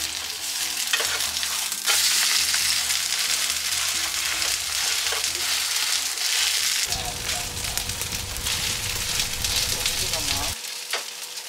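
Pancake batter sizzling in hot oil in a non-stick frying pan, with a spatula scraping and pressing against the pan.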